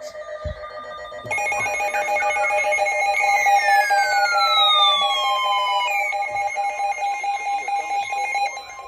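Electronic alert tone: steady warbling pitched tones that come on about a second in, with a long falling whistle-like glide in the middle, stopping shortly before the end.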